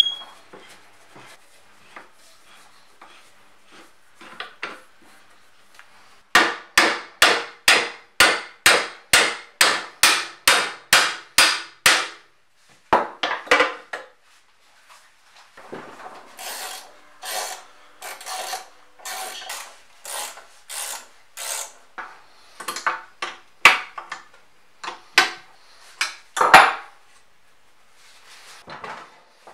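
Hammer blows on the metal parts of a Kity 652 mortiser during disassembly: a fast, even run of about sixteen strikes, then a pause and more irregular knocks mixed with scraping, the loudest blow near the end.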